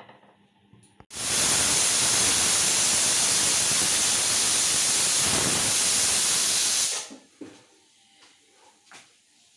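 Prestige Deluxe aluminium pressure cooker giving its whistle: a loud jet of steam hisses out under the lifted weight, starting abruptly about a second in and cutting off suddenly some six seconds later. The whistle is the sign that the cooker has come up to full pressure.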